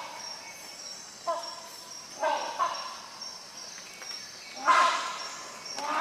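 Rhinoceros hornbill calling: a series of about five short, loud calls, some in quick pairs, the loudest about three-quarters of the way through.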